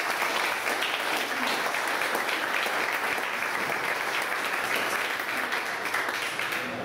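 An audience applauding steadily, easing off near the end.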